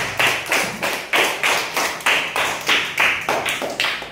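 A class of schoolchildren clapping in unison, an even beat of about three claps a second.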